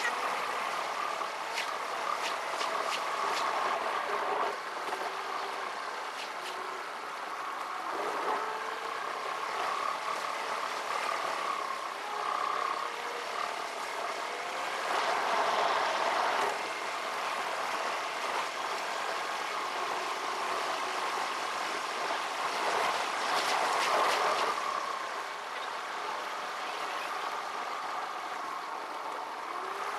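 Car engine and road noise heard from inside a moving car, played back at four times speed, so it comes out as a high, warbling hum. The engine notes slide up and down as the car speeds up and slows, and there are louder, rushing stretches twice.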